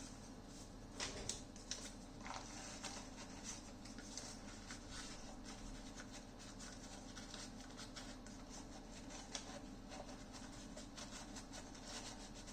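Faint scratching and rubbing of paper shims being worked in around a loudspeaker voice coil to center it, with a few light clicks about a second in.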